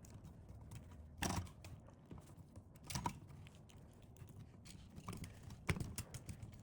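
Faint clicks and light knocks of metal-clad (MC) cable and its fittings being handled, with three louder knocks among many small ticks.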